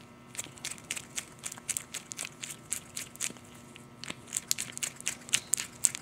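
Tapered roller bearing being hand-packed with grease, its large side scraped again and again through a palmful of grease in a gloved hand. The result is an irregular run of soft crackling, squishing clicks.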